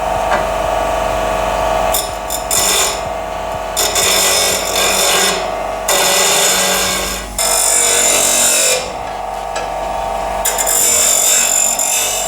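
Delta variable-speed bench grinder running with a steady whine, broken by several harsh, noisy stretches of a second or two each as something is ground against the wheel.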